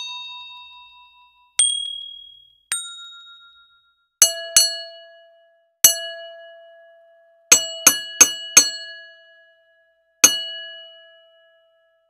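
A run of bright bell-like dings, each struck suddenly and left to ring out: three single dings at different pitches, then a lower ding repeated about eight times, several in quick succession.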